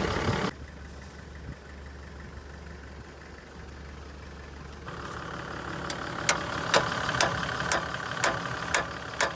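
A vehicle engine running with a steady low hum for the first few seconds. About halfway in, a run of sharp clicks, about two a second, from tools at work under an 80 Series Land Cruiser's front axle, where a worn panhard rod bushing is being packed to stop a death wobble.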